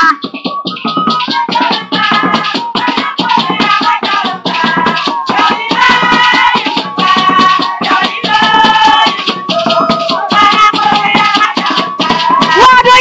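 Music with shaken rattles keeping a quick, steady rhythm under a melody of held notes.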